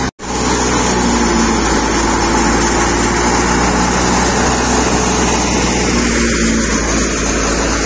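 Wheat thresher running steadily while sheaves of wheat are fed into it: a constant mechanical drone with a steady low hum and a rushing of chaff and air. The sound cuts out for an instant just after the start.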